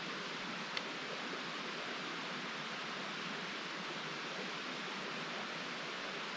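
Steady rushing of flowing creek water, even and unbroken, with a single faint click about a second in.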